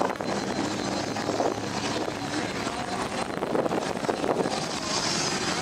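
Steady engine noise from a 4x4 vehicle in the dunes, with voices mixed in.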